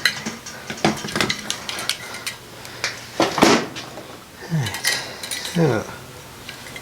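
Metal clicks, clinks and scrapes from an Edelbrock four-barrel carburetor's parts and hand tools being handled during disassembly, with a louder scrape about midway.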